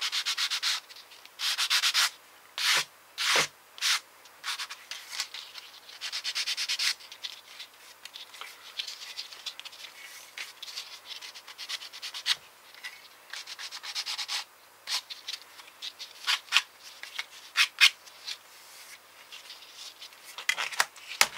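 Sanding the sprue nubs off small plastic model-kit parts: bursts of quick, hissing rasping strokes, each lasting up to about a second, with short pauses between.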